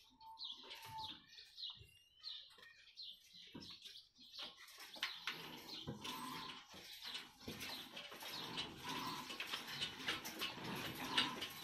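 Birds chirping, then from about four seconds in a dense mechanical clicking and clatter, growing louder, as the heavy old Ruston Hornsby diesel engine is turned over by hand crank, with a short squeak recurring every second or two.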